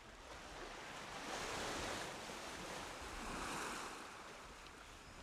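Sea waves washing, a steady hiss of water that swells twice, about a second and a half in and again past three seconds.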